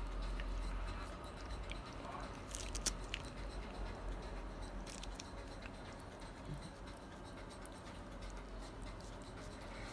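A cat licking a lickable paste treat from a squeezed tube: faint, wet licking and smacking, with a short cluster of sharp clicks about two and a half to three seconds in.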